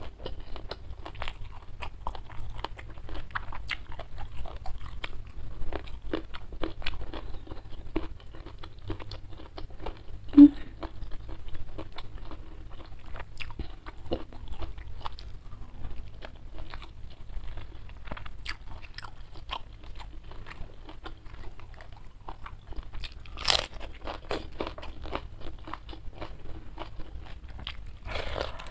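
Close-miked eating sounds: a person chewing and crunching food, with a steady run of moist mouth clicks and crackles. A short low thud about ten seconds in, a loud crunching bite about 23 seconds in and another crunch near the end.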